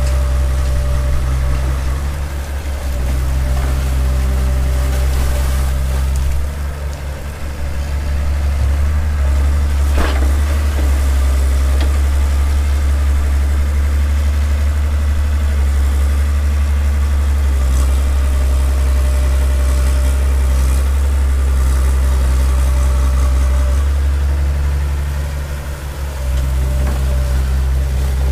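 Hitachi excavator's diesel engine running steadily as the machine works, its note dropping briefly a few times. A single sharp click comes about ten seconds in.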